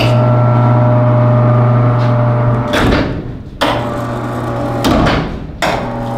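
Electric cable hoist humming steadily as it winches an oryx carcass up on a gambrel. The motor stops twice briefly, with a clatter each time, then starts again.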